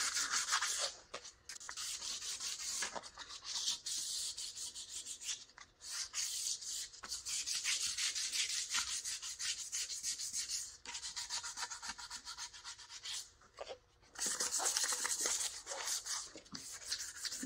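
320-grit sandpaper rubbing over a wheel's clear coat in quick back-and-forth strokes, with a few brief pauses. It is scuffing the gloss down to a dull etch for new paint to bite into.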